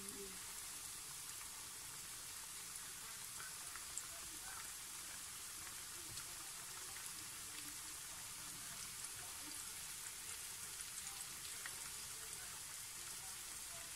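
Hot oil sizzling around flour-breaded chicken pieces deep-frying in a pan: a steady hiss with scattered small crackles and pops.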